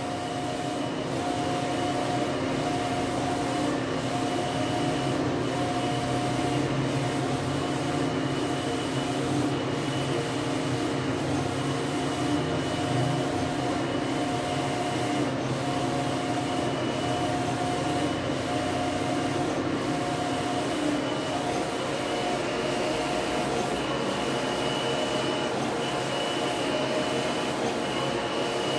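Wide-format sublimation inkjet printer running a print job: the printhead carriage shuttles back and forth across the paper in an even rhythm, one pass about every second and a half, over a steady mechanical hum.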